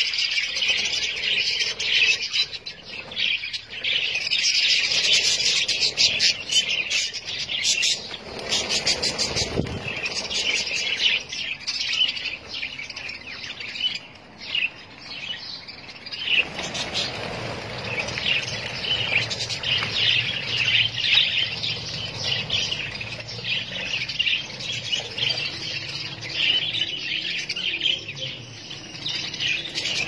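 A flock of budgerigars chattering and chirping without pause, many overlapping calls at once.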